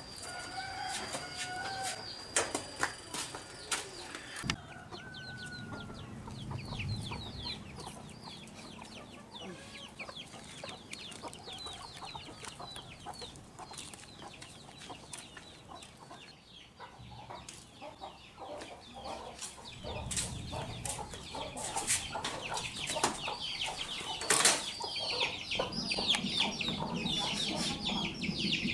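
Domestic chickens clucking, with many quick high chirps, louder over the last several seconds. A single sharp knock sounds a little before the end.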